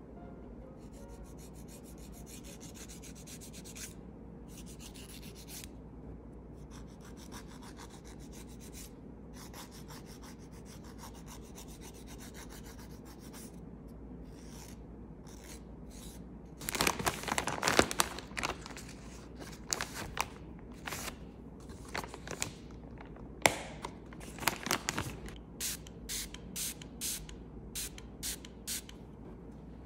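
Nail file rubbing across fingernails in quick, faint strokes, then louder and more separate strokes from a little past halfway.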